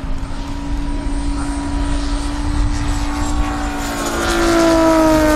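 A Corsair's radial piston engine and propeller and an L-39 jet trainer flying past in formation. Their engine drone grows louder about four seconds in, and its pitch then drops as they go by, over a faint high whine.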